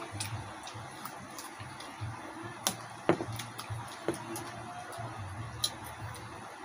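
Close-up eating sounds: crispy deep-fried pork head being pulled apart by hand and chewed, with scattered sharp crackles and clicks of the crunchy skin and mouth. The loudest crack comes about three seconds in.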